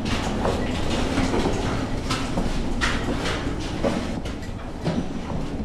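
Steel wheels of a mine cart rolling along rails, a steady rumble broken by irregular clanks and knocks.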